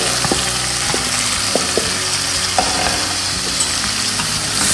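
Hot oil sizzling in a metal karahi as red lentils are poured in and stirred with a spatula, with a few short clicks and scrapes of the spatula against the pan in the first couple of seconds.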